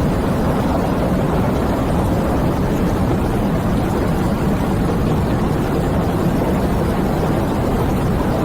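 Wind sound effect: a steady, low rushing of wind with no gusts or breaks.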